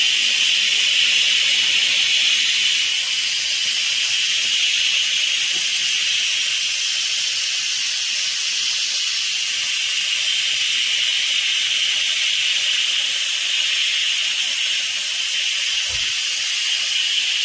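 Instant Pot electric pressure cooker venting steam through its release valve in a manual quick release of pressure after cooking: a loud, steady hiss that eases a little after a few seconds.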